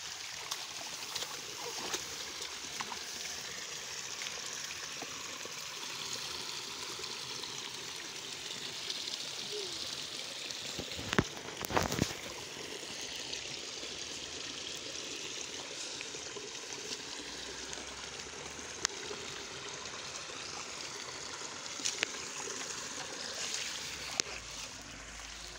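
Water running steadily through a small irrigation ditch beside a rice paddy. A few sharp knocks near the middle come from fingers handling the phone.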